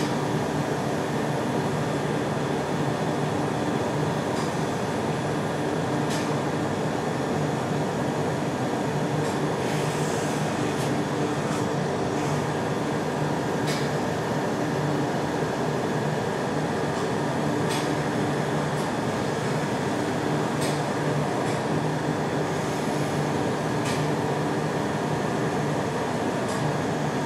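Steady hum and hiss of running laser treatment equipment, with a low tone held underneath and short sharp clicks every one to four seconds as the laser fires.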